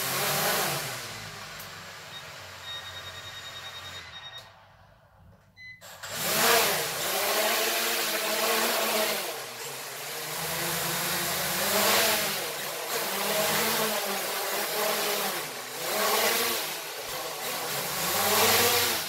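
Small toy quadcopter's electric motors and propellers whirring, the pitch rising and falling in repeated surges as the throttle is worked while it tips and scoots on a bed. A brief rapid high beeping comes just before the motors stop about four seconds in; they spin up again around six seconds and keep surging.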